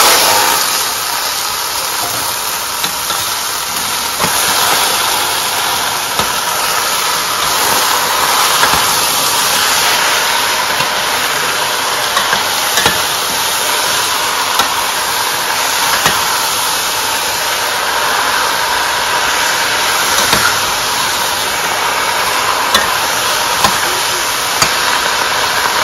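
Chicken pieces sizzling as they are stir-fried in hot oil in a pan, a steady hiss broken by occasional sharp clicks of the stirring utensil against the pan.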